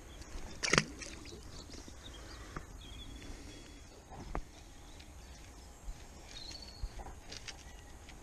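Quiet canal-side ambience with a single short splash just under a second in, the released perch dropping back into the water, and a couple of short bird chirps later on.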